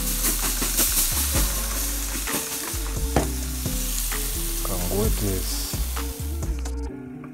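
Chicken pieces sizzling on a hot barbecue grill, a steady dense hiss with a few sharp clicks, which cuts off abruptly near the end.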